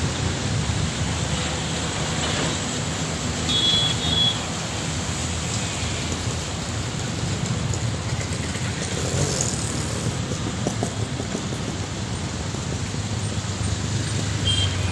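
Steady low rumble and hiss of distant engines, with a short high tone about three and a half seconds in.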